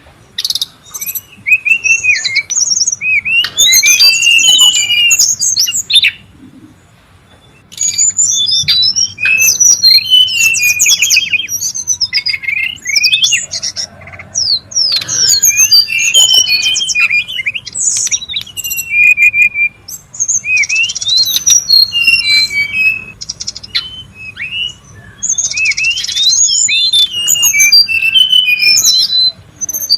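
Brown-chested jungle flycatcher singing a busy, varied song of quick whistles, chirps and trills, with a pause of about two seconds some six seconds in.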